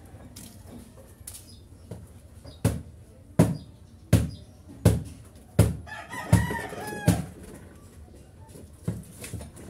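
A rooster crowing once near the middle, over a run of seven loud thumps about 0.7 s apart.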